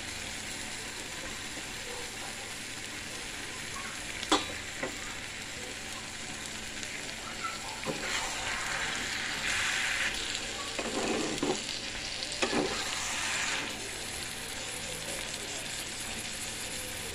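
Cabbage curry sizzling as it fries in a non-stick kadai, while a steel spatula stirs it, with a few sharp knocks and scrapes against the pan. The sizzling grows louder for several seconds in the middle.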